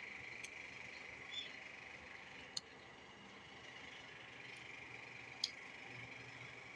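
A metal fork clicking against the slow cooker's crock while lifting noodles out of soup: a faint click shortly after the start, then two sharp clicks about three seconds apart, over a faint steady hiss.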